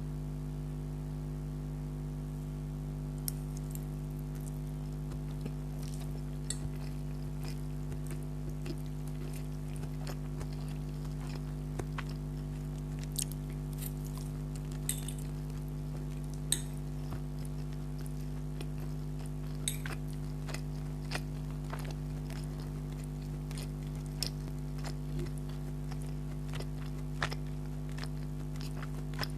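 Close-up chewing of spaghetti: scattered wet mouth clicks and smacks, over a steady low electrical hum.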